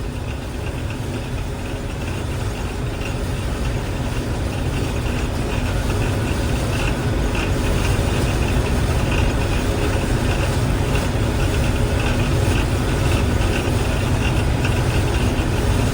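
Heavy engine running steadily, its low rumble growing gradually louder over the first several seconds and then holding level.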